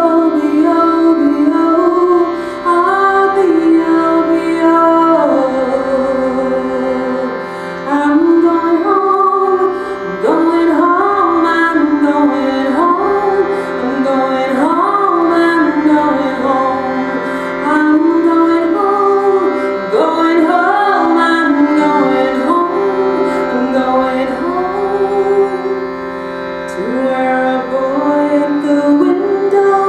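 A woman singing a slow, sliding, ornamented melody in long phrases over a steady reed drone from a hand-pumped shruti box.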